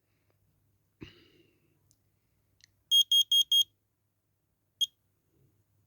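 Combination smoke and carbon monoxide alarm's sounder. About a second in there is a click, then four quick high beeps around three seconds in, and a single chirp near the end: the chirp it gives after a test, which sounds healthy. The sounder is covered with tape.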